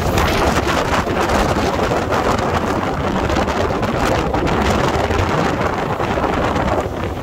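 Car driving through heavy rain on a wet road: a loud, steady rush of wind, tyre spray and rain, with many small rapid pattering hits.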